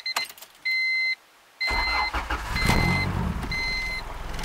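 A car's warning chime beeping about once a second. About one and a half seconds in, the engine cranks, catches and keeps running, with the chime going on over it.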